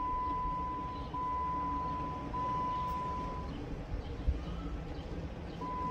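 A steady, high electronic beep, sounding in lengths of about a second with very short breaks between them, stops about three and a half seconds in and starts again near the end, over a low background rumble.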